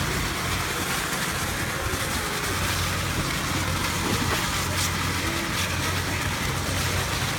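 Steady hiss of a lawn sprinkler spraying water up onto a trampoline mat, over a constant low hum.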